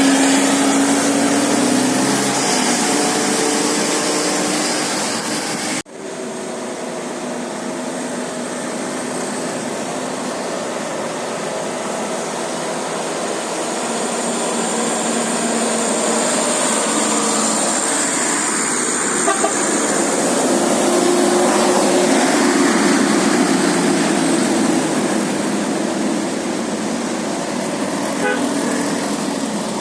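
A bus's basuri telolet horn plays a few steady, stepping tones for about the first two seconds. Traffic and engine noise follow, with a sudden break about six seconds in and a swell of passing-vehicle noise in the second half.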